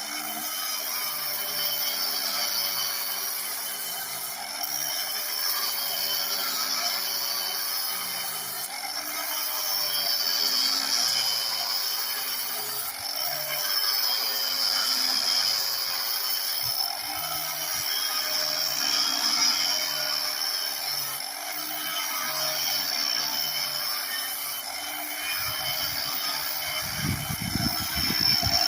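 Angle grinder running steadily, its disc grinding bark off a log. The motor's whine dips and recovers slightly as it is pressed into the wood. Low rumbling knocks come in near the end.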